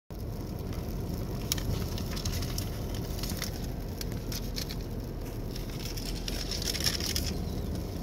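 Steady low rumble of a car driving on a snowy road, heard inside the cabin, with scattered light ticks and crackling, loudest a little before the end.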